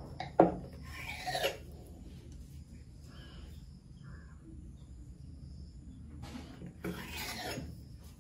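Large kitchen knife cutting a thin layered sheet of rolled maida dough, its blade scraping across the board beneath in two strokes about six seconds apart. A sharp knock sounds about half a second in as the blade comes down.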